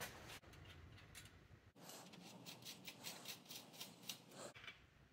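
Bicycle headset's chrome threaded top race being spun by hand down the fork steerer threads: faint metallic ticking and scraping. About two seconds in it becomes a quick run of light ticks, about five a second, lasting a couple of seconds.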